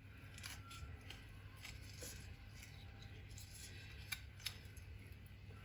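A knife cutting into orange peel to work out the hard stem end: faint scattered scraping clicks, with two sharper ticks about four seconds in.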